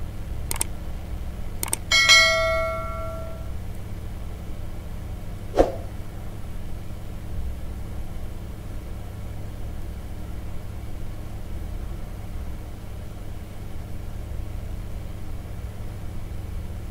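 Subscribe-button sound effect: two clicks, then a bell ding about two seconds in that rings out and fades over about a second and a half. One more click follows about five and a half seconds in, over a steady low hum.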